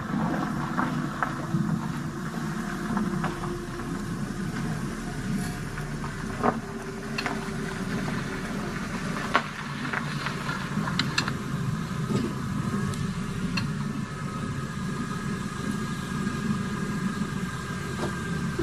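A car's engine running steadily as it approaches slowly, with scattered sharp clicks over the rumble.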